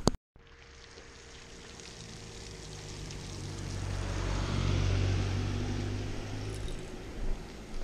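A sharp click at the very start, then a vehicle passing by: a low rumble that swells slowly to a peak about five seconds in and fades away.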